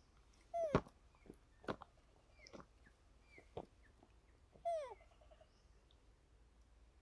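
Macaque calls: two loud, short calls falling in pitch, about half a second in and near five seconds, with several fainter short calls and a few sharp clicks between.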